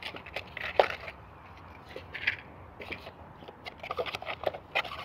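Hands rummaging among packaged items in a small cardboard box: scattered light clicks, taps and crinkles of packaging and cardboard.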